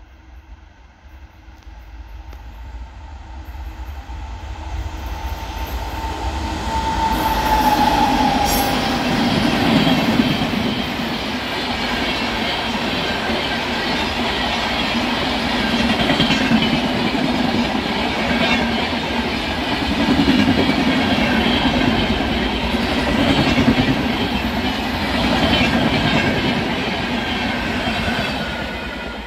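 Indian Railways express train approaching and passing at speed. The rumble builds over the first seven seconds, with a short tone that falls slightly in pitch around then. The wheels on the rails then keep up a loud, steady noise that swells every few seconds as the coaches go by, and it starts to fade near the end.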